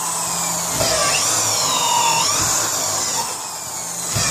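Electric drill running with a step drill bit, boring a ½-inch hole through a wooden door; its whine rises and falls in pitch as the bit loads up in the wood. It drops in loudness for a moment near the end.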